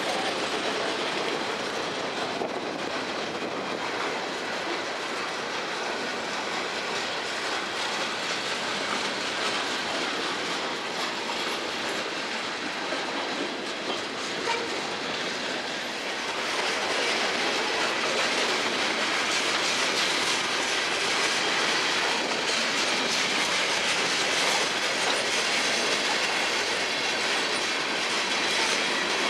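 Freight cars rolling past with steady wheel-on-rail noise, a little louder from about halfway through.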